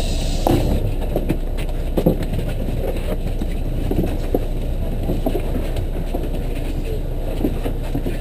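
Inside a bus standing at a stop: the engine idles with a steady low rumble while passengers shuffle out, with scattered knocks and bumps and some murmured voices. A short hiss dies away in the first second.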